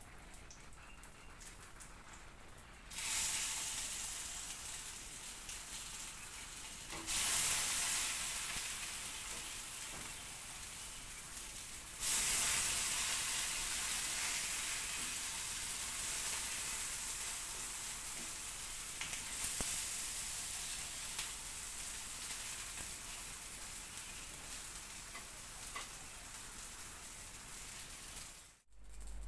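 Ready-made burger patties sizzling as they fry in a frying pan. The sizzle flares up suddenly three times as the patties are turned, and slowly dies down after each flare.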